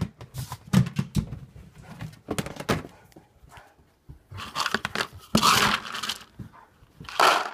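Dry dog kibble rattling in a plastic storage bin as it is scooped out, in two rushing bursts in the second half, after several knocks and clicks of the bin being handled.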